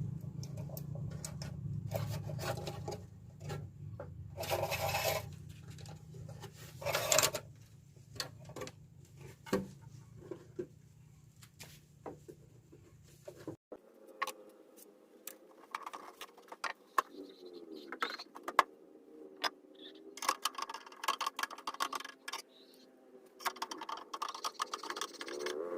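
Clicks, taps and scrapes of small parts and tools being handled during a radio restoration. A low steady hum runs underneath and cuts off suddenly about halfway through.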